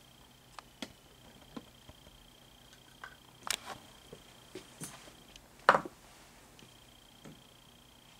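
Scattered light clicks and knocks from handling a collectible statue as its interchangeable head is swapped, with a cluster of louder taps around three and a half seconds in and a brief squeaky scrape just before six seconds.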